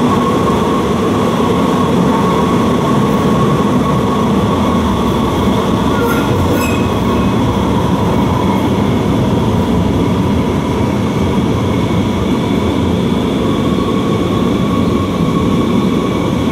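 San Francisco Muni Metro light rail vehicle running through a rail tunnel, heard from outside the rear of the car: a loud, steady rumble of wheels on rails with steady whining tones over it. About six seconds in there is a brief higher-pitched squeal.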